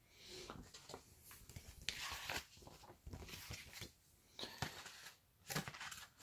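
Snack packaging being handled: irregular crinkling and rustling of plastic wrappers, with a few light knocks.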